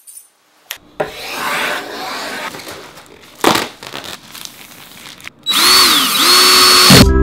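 Plastic wrap rustling as it is pulled off a flat-pack desk top, then a cordless drill driving a screw into a metal leg-mounting plate; the motor whine dips in pitch and recovers once. Music starts right at the end.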